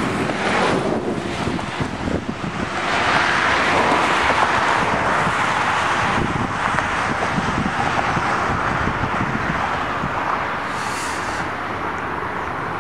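Steady rolling rumble of a long double-stack intermodal freight train heard from across a river, swelling about two to three seconds in and then holding. Wind gusts buffet the microphone throughout.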